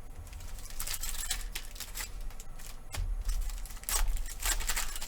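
Trading cards being handled: crisp, irregular sliding and rustling as cards are pushed across one another, with louder scrapes about a second in and again near the end.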